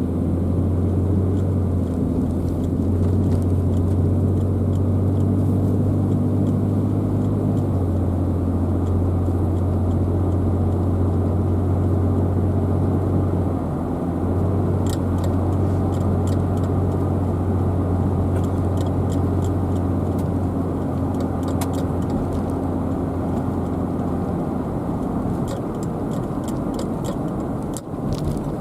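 Car driving on the road: steady engine and tyre noise with a low drone that shifts in pitch a few times. Faint short clicks come and go in the second half.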